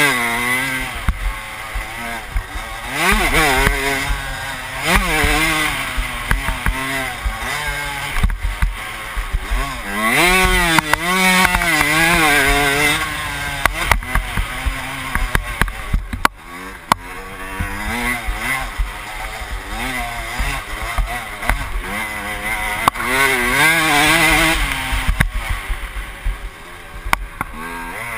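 Dirt bike engine revving hard and easing off over and over as it accelerates, shifts and slows around a motocross track, its pitch rising and falling every couple of seconds.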